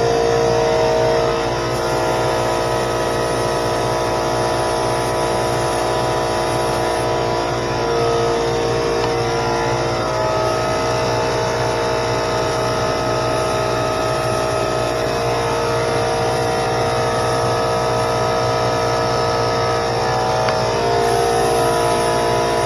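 A small 21-gallon air compressor runs steadily while an LVLP spray gun lays base coat. There is a constant low hum with several held tones, and the air hiss swells about seven seconds in and again near the end.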